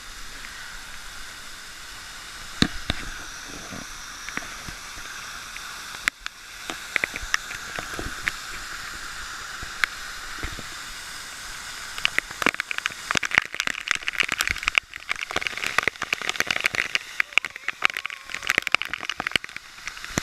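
Waterfall rushing steadily, with irregular sharp crackling that grows much denser about halfway through.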